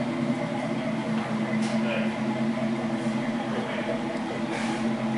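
A car engine idling steadily, with indistinct voices behind it.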